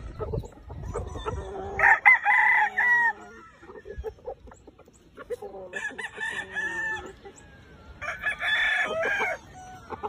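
Gamefowl roosters crowing three times, each crow about a second long and falling away at the end.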